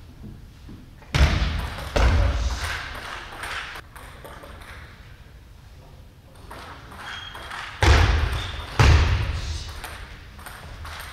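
Table tennis play: the celluloid ball clicking on the table and rackets. Twice comes a pair of loud, sudden bursts that echo and fade over a second or two in the hall, one pair after each point is won.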